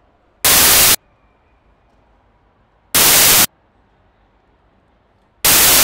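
Three loud half-second bursts of static-like white noise, evenly spaced about two and a half seconds apart, each starting and stopping abruptly over a faint background hiss.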